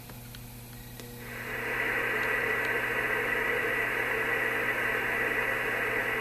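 Steady radio static hiss from the ICOM IC-756 HF transceiver's speaker, coming up over about half a second a second in as the left front-panel knob is turned, then holding level, with a steady high tone in it.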